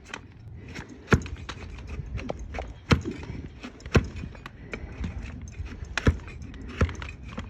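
Donkey hooves knocking on hard ground: five loud, sharp knocks at irregular intervals, with lighter clicks between them.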